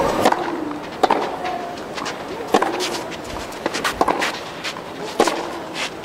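Tennis racket strokes on the ball in a rally, opening with a serve: sharp hits about every one to one and a half seconds, with the ball's bounces between them.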